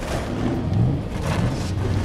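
Animated monster truck engines revving at the starting line: a loud low rumble that rises and falls in pitch, coming in abruptly at the start.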